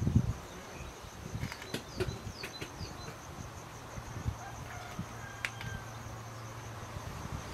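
Outdoor ambience: a steady, high insect drone, with a bird's few short chirps about two seconds in and soft knocks of dishes and a container being set down on the ground.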